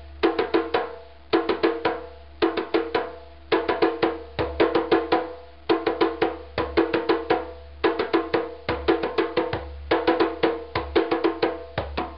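Djembe played with bare hands in a repeating pattern: groups of about six quick strokes, one group roughly every second, with the skin head ringing after each stroke.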